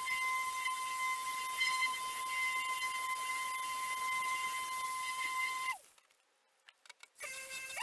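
Rupes Bigfoot random-orbital buffer running with a steady high whine while polishing car paint. Nearly six seconds in its whine drops away and it stops, with a few clicks; just over a second later it starts again and the whine rises back up to speed.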